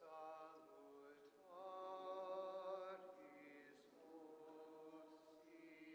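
Faint, slow chant-like singing: long held notes with a slight waver, moving to a new pitch every second or two.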